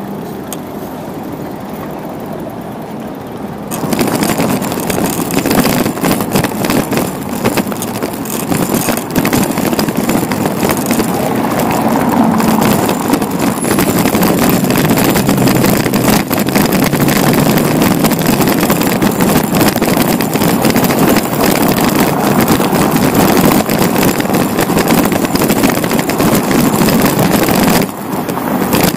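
Wind rushing over the microphone of a bicycle-mounted camera, mixed with road noise while riding. It gets louder about four seconds in and dips briefly near the end.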